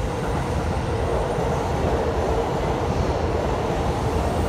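Steady city street ambience: an even, loud, low rumble of traffic.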